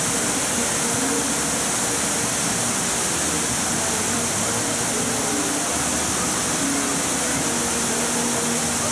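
Water spilling steadily over the rim of a fountain basin, a constant hiss, with faint voices and music underneath.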